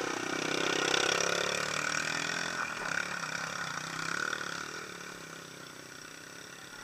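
Small four-stroke dirt bike engine (Yamaha TT-R110) revving in first gear as it pulls away up a rocky climb, rising and falling in pitch, then growing fainter from about four seconds in as it moves off. Another motorcycle idles steadily close by underneath.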